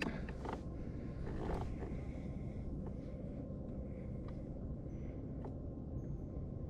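Steady low wind rumble on the microphone out on open water, with a few faint clicks.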